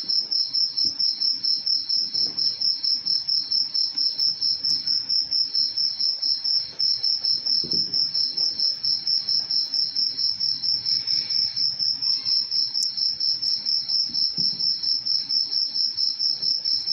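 A cricket chirping loudly and steadily: a high-pitched, evenly pulsed chirp repeating several times a second without a break.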